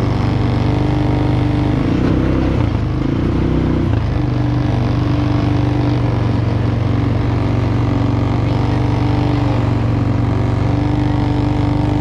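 Small quad ATV engine running steadily at low speed, its pitch wavering briefly about two to four seconds in.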